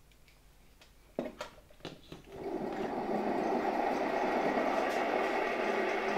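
A few short clicks, then the KASB-70/30 electric motor of a 1964 Gamma II vacuum cleaner, powered from a rectifier, spins up about two seconds in and runs steadily with an even whir.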